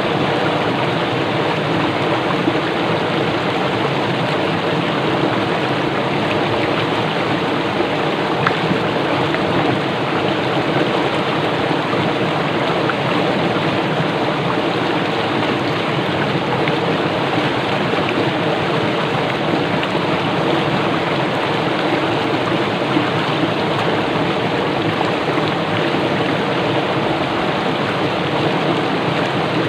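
Swift water in a small river rushing and bubbling over rocks, a steady, even rush.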